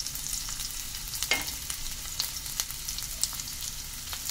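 Sliced onions sizzling in hot oil in a non-stick pan: a steady frying hiss with scattered small crackles and one sharper pop about a second in.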